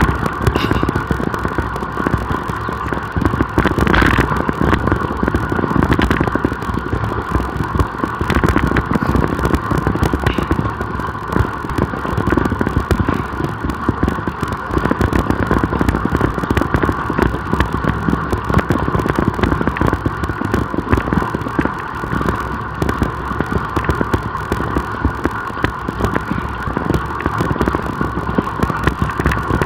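Wind buffeting the microphone and tyre and road noise from a road bicycle riding at speed: a loud, steady rushing rumble with a constant hum in the middle range and a few faint knocks.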